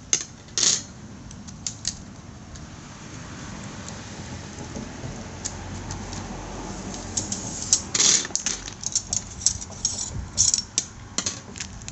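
Light clicks and metallic rattles from handling a windshield wiper blade while its old rubber insert is slid out of the frame, in scattered taps that come thickest about eight to eleven seconds in.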